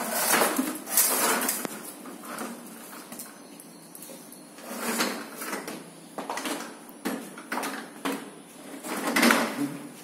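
Hard plastic wheels of a child's ride-on toy train rolling and clattering over floor tiles, with scattered clicks. The rattling comes in three bursts, loudest near the start and again near the end.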